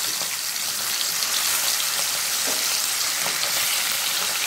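Tangra fish sizzling in hot mustard oil in a kadai as more fish are slid into the pan, a steady hiss with a few faint crackles.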